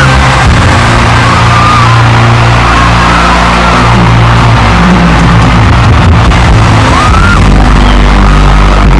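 Loud live concert music from a stage sound system, with heavy sustained bass notes and faint sung phrases gliding over it.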